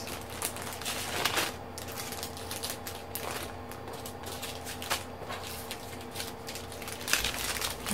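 Small plastic bags of diamond-painting drills being handled and sorted, with irregular crinkling and clicking.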